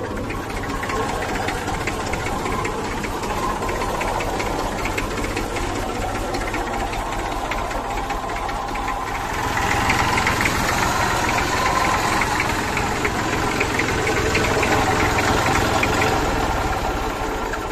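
Massey Ferguson 35 tractor's diesel engine idling with a steady clatter, getting louder about halfway through.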